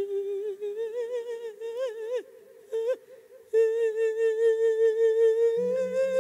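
A Buddhist monk singing a drawn-out Isan lae melody through a microphone: long held vowel notes with a strong wavering vibrato and no clear words. The notes break off briefly about two seconds in, and a low steady tone comes in under the voice near the end.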